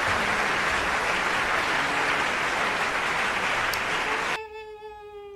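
A loud, even burst of applause, edited in, that starts and cuts off abruptly after about four and a half seconds. It is followed by a single held vocal note that falls slightly.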